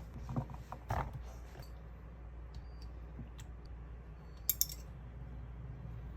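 A few light clicks and knocks of kitchen handling, with a sharp double click about four and a half seconds in, over a low steady hum.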